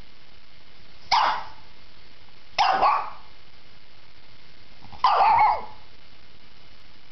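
Shih-tzu barking three times, with pauses between, the last bark the longest.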